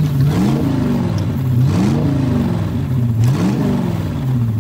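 Revving engine sound for a toy Mars rover driven over grass, its pitch rising and falling three times, about every second and a half.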